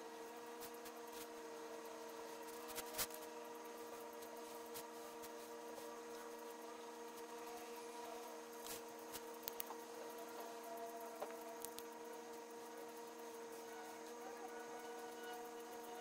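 Faint steady hum of several even tones, with light scratching and a few soft taps from a felt-tip marker drawing on cardboard laid on a wooden tabletop.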